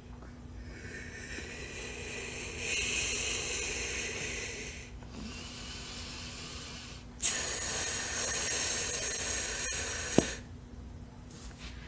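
Breathy hissing of air through nose and mouth while a big bubble-gum bubble is blown up, in two long stretches, the second louder. Near the end a short sharp pop: the bubble bursting.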